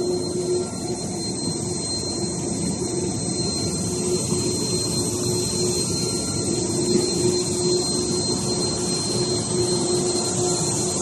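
Workshop machinery running steadily: a continuous mechanical noise with a constant hum and a thin high-pitched whine.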